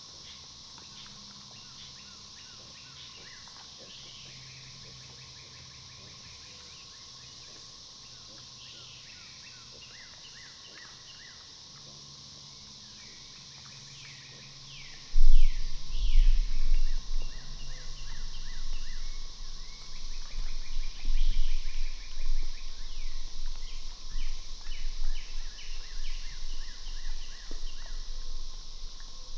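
A steady insect drone with short bird chirps. About halfway through, a sudden loud low thump starts an uneven low rumbling that continues and drowns out the insects and birds.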